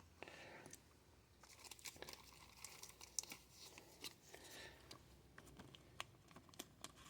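Faint rustling, crinkling and small scattered clicks of cardboard trading cards and their wrappers being handled by hand.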